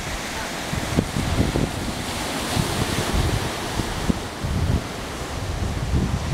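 Wind buffeting the microphone in irregular gusts, over a steady rush of sea surf breaking on a rock shoreline.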